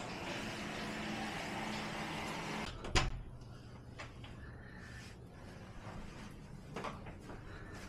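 A steady hum and hiss stops after about two and a half seconds, then a door knocks sharply once as it is opened, followed by a few faint clicks.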